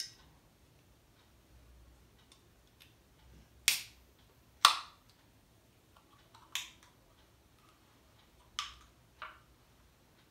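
Aluminium soda can being worked open by its pull tab: a handful of sharp metallic clicks and snaps, the two loudest close together about four seconds in, with smaller ones after.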